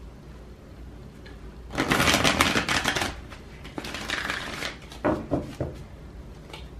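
A deck of oracle cards being shuffled by hand: a quiet start, then a long run of rapid card rustling about two seconds in, a shorter run around four seconds, and a few light card clicks after.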